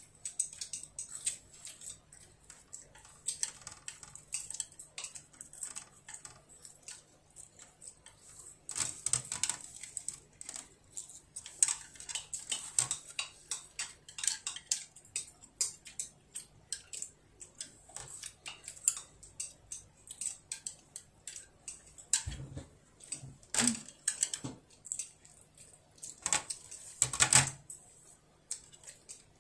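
Chopsticks tapping and scraping against a plate in irregular small clicks, as food is picked up bite by bite, with a few louder knocks in the last third.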